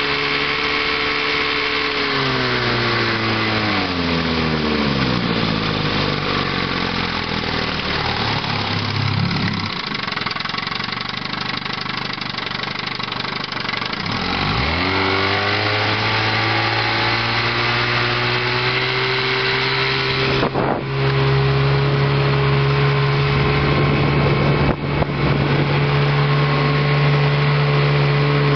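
1958 Evinrude Sportwin 10 hp two-cylinder two-stroke outboard running at speed, then throttled back over several seconds to a low idle. About halfway through it is opened up sharply and held at a steady higher speed, with two brief dips in the sound, and it starts to slow again at the very end.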